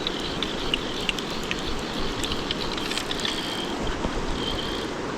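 River water rushing steadily, with a few faint high-pitched tones about three and four and a half seconds in.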